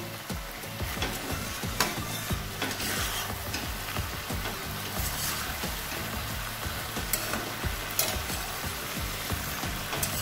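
Taro stolons and fried shrimps sizzling in a pan while being stirred, the stirring utensil scraping and knocking against the pan a few times.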